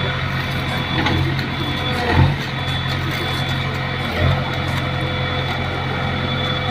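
Diesel engine of a JCB 3DX backhoe loader running steadily, with a thin steady tone above it and brief swells in engine note about two and four seconds in.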